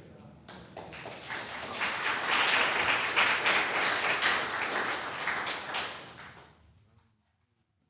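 Congregation applauding: many hands clapping, swelling over the first two seconds, then dying away about a second before the end.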